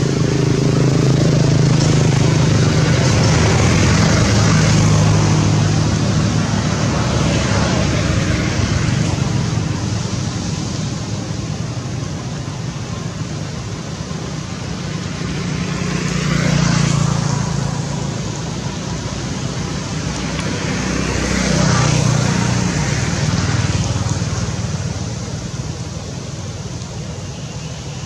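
Road vehicles passing, their engine hum and tyre noise swelling and fading; the loudest passes come near the start and about two-thirds of the way through.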